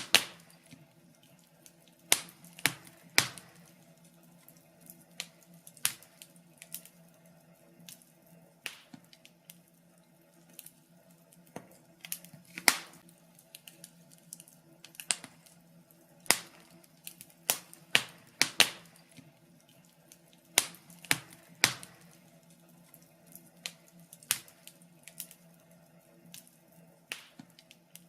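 Wood fire crackling in a fireplace: irregular sharp pops and snaps at uneven intervals, several loud, over a faint steady hum.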